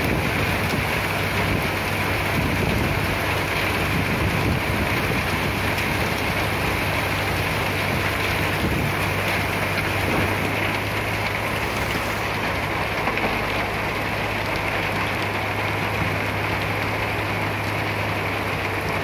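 Heavy diesel machinery running steadily: a constant low engine hum under a dense hiss-like rush of noise.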